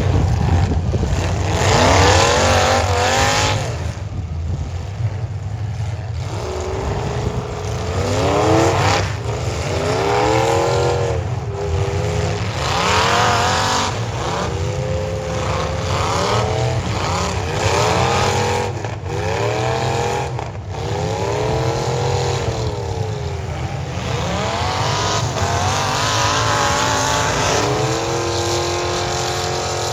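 Demolition derby cars' engines revving hard again and again, each rev rising and falling in pitch every second or two, over the steady low drone of other engines running.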